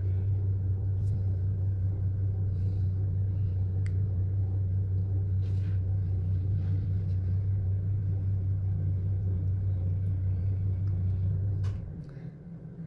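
A steady low machine hum that cuts off near the end, with a few faint clicks over it.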